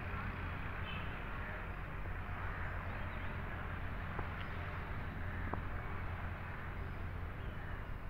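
Outdoor ambience: a steady low rumble with a hiss over it, a few faint bird chirps and a couple of light clicks.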